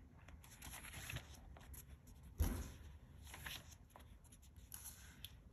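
Pages of a paper planner being turned by hand: soft rustling, with one sharper, louder page flap about two and a half seconds in.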